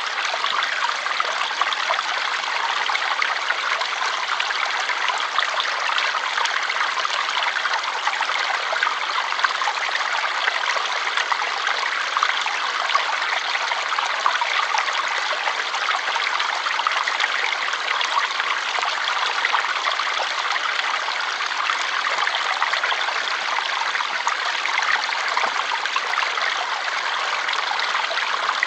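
Water flowing steadily: a continuous bright rush with fine, restless splashing detail and no low rumble.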